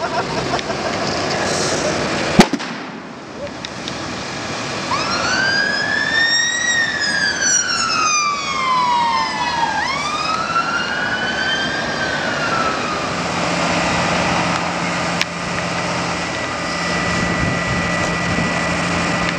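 A single loud, sharp bang from the burning car transporter, typical of a tyre or fuel tank bursting in the fire, over a steady rushing noise of the blaze and the fire hoses. A few seconds later an emergency-vehicle siren wails, rising and falling slowly about one and a half times before it fades, and a steady low hum is left behind.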